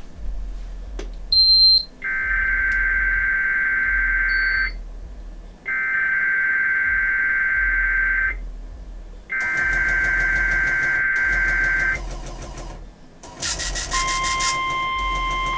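NOAA Weather Radio test signal from station KIG86: three identical warbling SAME data-header bursts of about three seconds each, then near the end the steady 1050 Hz warning alarm tone begins. A short high beep comes just before the first burst.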